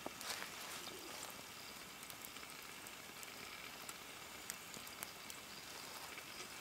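Faint steady sizzle of beef and vegetables roasting in oil in a Dutch oven lid inside a stone oven, with small scattered crackles from the wood fire burning beneath.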